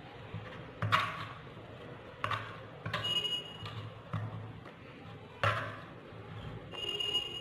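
A masher knocking against the bottom of a clay pot as moringa flowers and pomegranate arils are crushed in milk. It makes about five irregular knocks, two of which ring briefly with a short ping.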